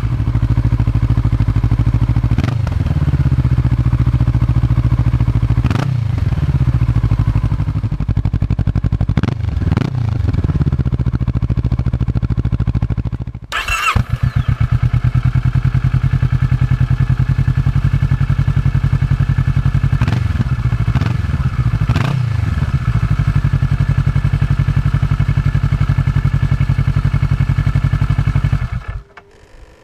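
Kawasaki Vulcan S 650's parallel-twin engine idling through an Arrow Rebel slip-on silencer with a throaty note, blipped to quick revs several times. The engine sound drops away just before the end.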